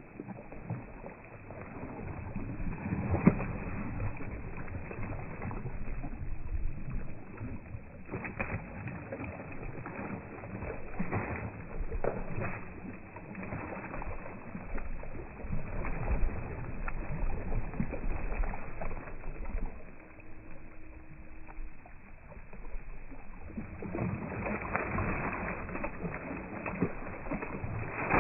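Steady rumbling noise aboard a fishing boat at sea, broken by scattered knocks and thumps; the loudest knock comes about three seconds in.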